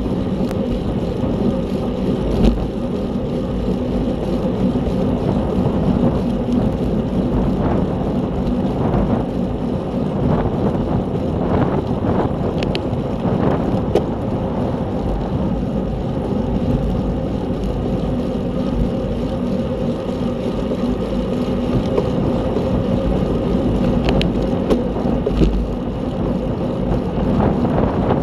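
Steady wind rush and road noise on a camera riding on a racing bicycle at speed, with a few faint ticks.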